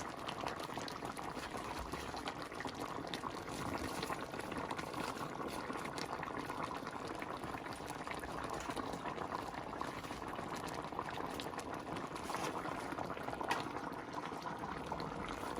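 Pot of kare-kare stew, pork hock and fresh vegetables in a peanut sauce, boiling steadily with continuous bubbling and crackling.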